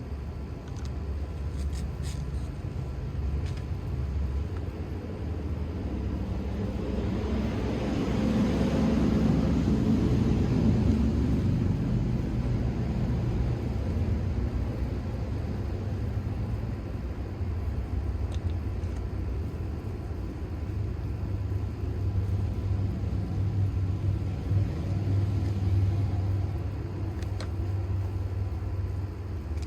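A steady low rumble, with a vehicle passing by: its noise swells over a few seconds, peaks about ten seconds in, then fades.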